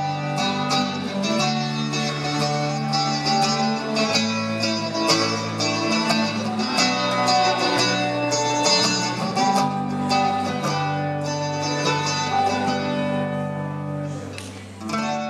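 Electric guitar and bass guitar playing an instrumental passage, plucked notes over a steady bass line. The playing fades away near the end, and a brief whoosh follows.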